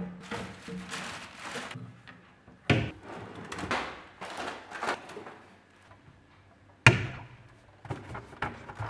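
Rummaging through a wooden cabinet and a pull-out drawer of small items: rustling and clattering of the contents, with two sharp wooden knocks from the cabinet, one near three seconds in and a louder one near seven seconds.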